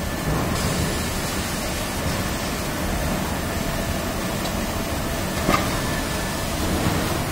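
Maxi-roll tissue converting machinery running: a steady mechanical hum and hiss with a faint high whine. There is one sharp click about five and a half seconds in.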